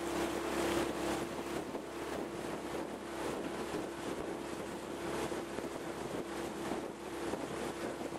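A small boat's outboard motor running at a steady hum, with wind buffeting the microphone.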